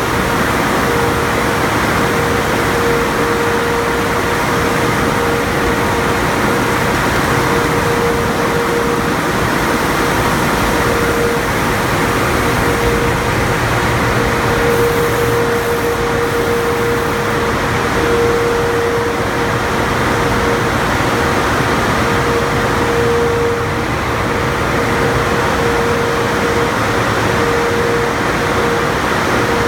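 Tunnel car wash equipment running: spinning foam side brushes and a cloth mitter curtain scrubbing a soapy car amid water spray, a steady loud wash noise. A steady mechanical whine runs through it, swelling and fading in strength.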